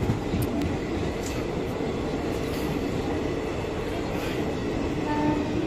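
An Indian Railways express train's passenger coaches roll past along the platform as it pulls into the station. The wheels make a steady rumble on the rails, with a few sharp clicks.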